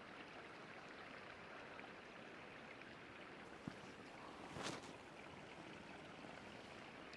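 Faint, steady rush of a flowing creek, with a single light tick about three and a half seconds in and a brief louder burst of noise about a second later.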